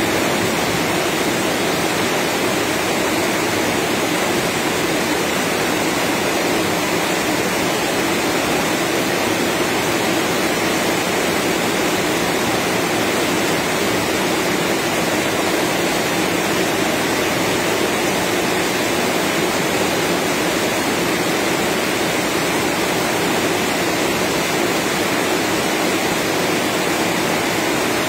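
Rain falling steadily: an even, unbroken hiss with no single drops or other sounds standing out.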